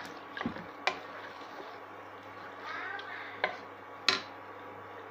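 Wooden spatula stirring chicken in thick masala inside an aluminium pressure cooker, with a few sharp knocks of the spatula against the pot, the loudest about four seconds in.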